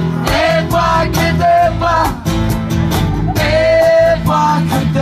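Live acoustic band playing: strummed acoustic guitars over a cajón beat, with sung vocals that hold one long note about three and a half seconds in.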